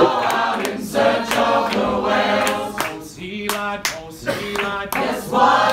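Group of voices singing a sea shanty together a cappella, with sharp hand claps keeping time. About three seconds in a single voice carries the line briefly before the group comes back in.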